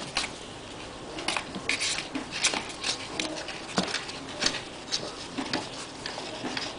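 A dog licking kittens clean: irregular wet tongue smacks and clicks, with small paws scrabbling on the cardboard of the box.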